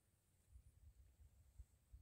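Near silence, with faint irregular low rumbling from about half a second in.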